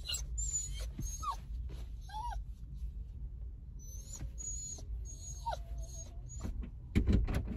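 Small dog whining in a string of short, high-pitched whines, some rising and falling in pitch. Near the end comes a louder burst of knocking and rustling.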